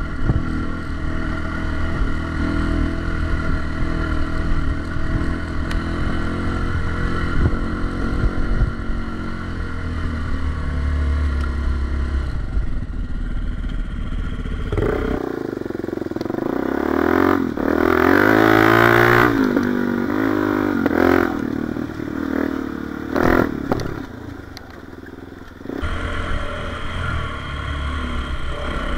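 Single-cylinder four-stroke dirt bike engine running under throttle on a trail. The engine holds a steady note at first. About halfway it revs harder, with the pitch rising and falling several times. It eases off briefly before steady running resumes near the end.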